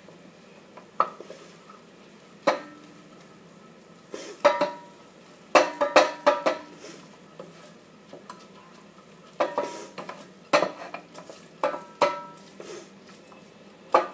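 Metal spoon stirring in a cooking pot, knocking and clinking against the pot at irregular intervals, some knocks ringing briefly.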